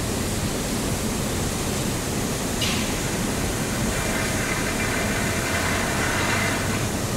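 Steady loud rushing industrial noise, with a short click about two and a half seconds in and a faint high whine in the second half.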